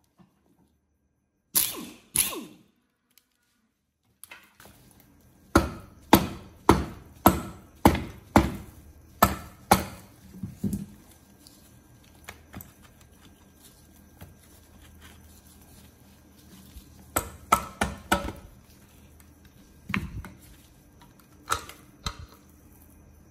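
Sharp knocks on a motorcycle engine's crankcase, as if it is being tapped to split the halves apart. First a pair of strikes, then a run of about nine evenly spaced blows at roughly two a second, then a few scattered strikes later on.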